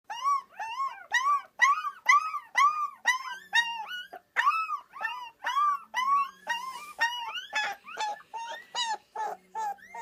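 Rottweiler puppy howling in a rapid string of short, high, rise-and-fall cries, about three a second.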